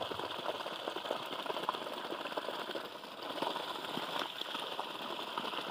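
Water gushing out of a borewell pump's discharge pipe and splashing into a muddy puddle: a steady rush with small scattered splashes.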